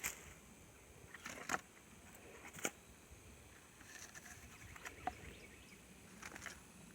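Pieces of dry firewood being set down on a small fire pile, knocking against each other: a handful of short, scattered knocks, the loudest about a second and a half and two and a half seconds in.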